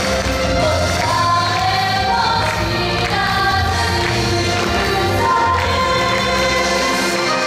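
An idol pop song performed live: several female voices singing together over a backing track with a pulsing bass line.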